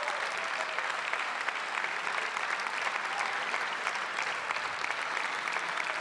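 Many deputies applauding together, a steady dense clapping of many hands.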